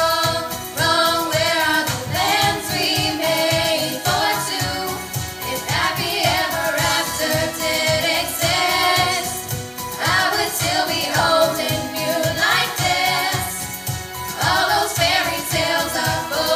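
A five-girl pop vocal group singing together in harmony into microphones over a backing track with a steady beat.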